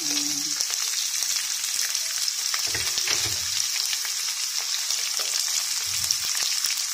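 Sliced red onions and browned garlic sizzling steadily in hot oil in a nonstick pot as they are sautéed, stirred with a wooden spatula, with a few soft low knocks.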